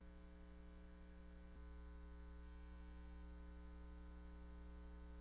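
Faint, steady electrical mains hum with a light hiss, switching on abruptly; a faint click about a second and a half in.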